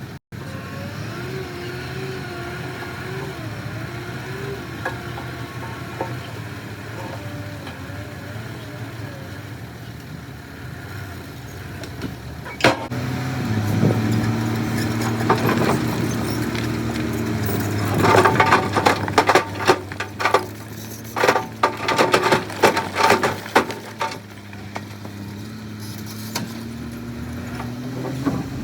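Diesel engines of heavy construction machinery running, the engine note rising and holding strong about halfway through. Near the end comes a run of loud rattling knocks and clatter for several seconds.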